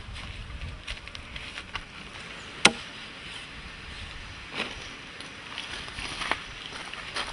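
Machete chopping raw meat on a wooden log: one loud, sharp chop a little under three seconds in, then two softer chops later on.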